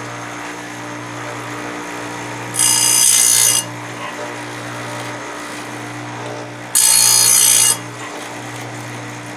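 Electric chainsaw sharpener's motor running steadily with a low hum, while its abrasive grinding wheel is brought down onto a saw-chain cutter twice, each time giving a loud, hissing grind of about a second.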